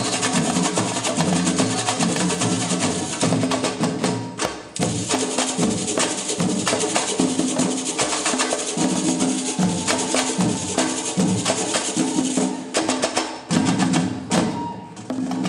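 Live samba percussion: two hand drums beating out a rhythm under a rapid, high clatter of small percussion. The playing stops briefly about four seconds in and breaks off twice near the end.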